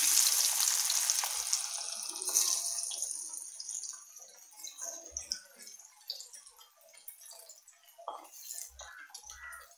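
Batter-coated cauliflower florets deep-frying in hot oil in a kadai. A loud sizzle just after they go in dies down gradually over several seconds to a quiet bubbling with scattered crackles.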